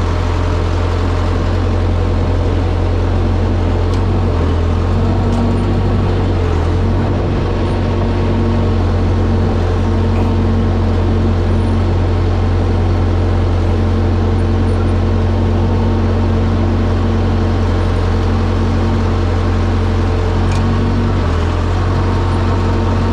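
Bulldozer's diesel engine running at a steady speed, a loud, even drone with a deep hum.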